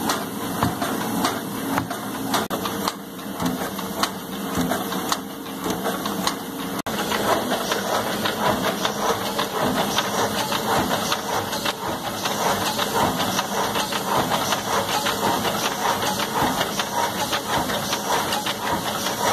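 CD printing machines running in a workshop: a steady mechanical clatter with hissing and frequent sharp clicks, the noise growing denser and steadier about seven seconds in.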